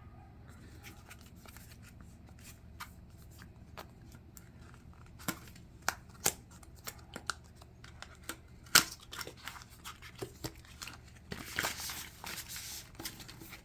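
Packaging being handled during unboxing: scattered clicks and taps of the box and plastic parts, then a stretch of paper or plastic rustling about two seconds from the end.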